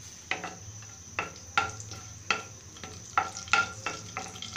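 Whole spices (cardamom, cinnamon, bay leaf, cloves) frying in hot oil in a karahi while a wooden spatula stirs them. There is a string of about ten sharp, irregular clicks and taps over a faint sizzle.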